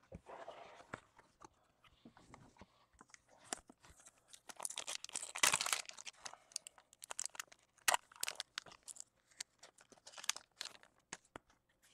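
Foil trading-card pack being torn open and crinkled by hand, with scattered crackles and small clicks; the crinkling is loudest about halfway through.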